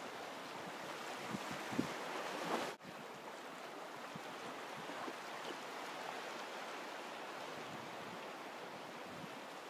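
Shallow surf washing over rocks and tide pools as a steady hiss, swelling slightly before the sound cuts out for an instant about three seconds in.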